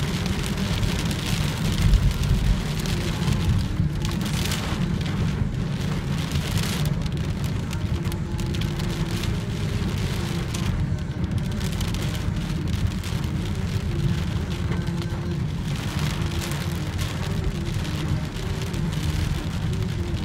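Rain falling on a car's windscreen and body, heard from inside the cabin over a steady low rumble of the moving car on the wet road.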